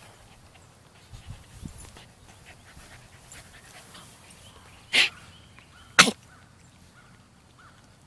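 Small dog panting and chewing at a bone-shaped chew toy, with two short, loud huffs from the dog about a second apart midway.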